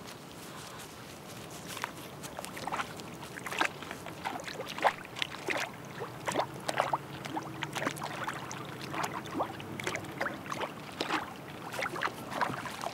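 Black bear wading through a shallow stream, the water splashing irregularly with its steps, starting about two seconds in.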